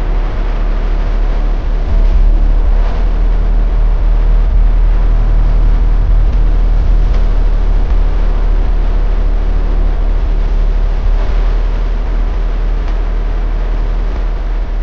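A heavy engine running steadily with a deep, low rumble.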